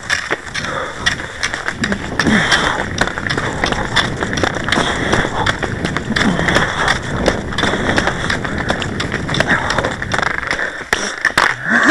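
Cross-country skis sliding and scraping along a groomed snow track, a continuous rough hiss with scattered sharp clicks.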